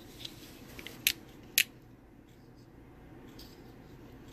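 Switchblade knife mechanism working: a few faint clicks, then two sharp metallic snaps about half a second apart. This is the blade firing and the slide lock engaging as the knife is tested after its tight slide lock was adjusted.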